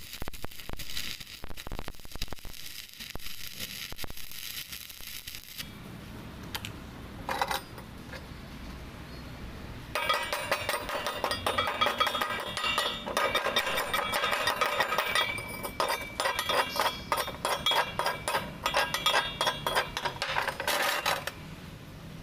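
Stick-welding arc crackling and spitting for the first five seconds or so. From about ten seconds in, a chipping hammer rapidly taps and scrapes slag off the fresh weld on the steel angle iron, with ringing metallic clinks, for about eleven seconds.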